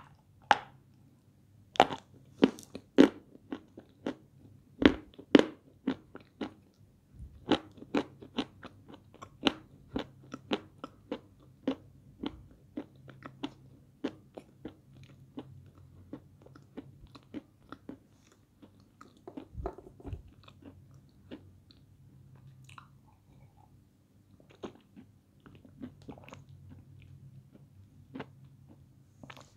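Dry pieces of peschanka, an edible clay, crunching as they are bitten and chewed. There are many sharp, crackly crunches, dense and loud for the first dozen seconds, then thinning out to sparser, quieter chewing.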